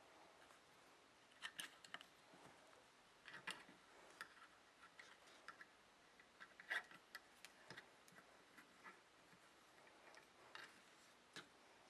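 Faint, irregular clicks and taps of a loom hook and fingers against the plastic pegs of a knitting loom as yarn is wrapped and lifted over the pegs, over near-silent room tone. The clicks come singly and in small clusters, the loudest about two-thirds of the way through.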